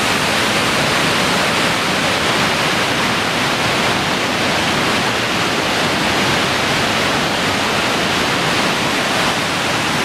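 The Lehner Waterfall, a steep Alpine mountain waterfall, heard close up as a loud, steady, unbroken rush of falling water.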